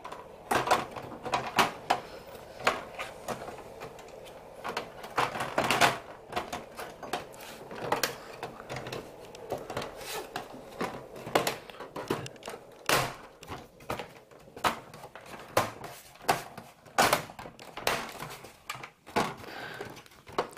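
Irregular clicks and knocks of hard plastic computer-case parts being handled and pressed together, with a plastic clip being pushed to snap into place.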